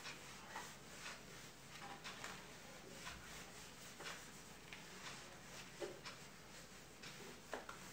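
Faint, irregular rubbing strokes of an eraser wiping marker writing off a whiteboard, with a few small knocks.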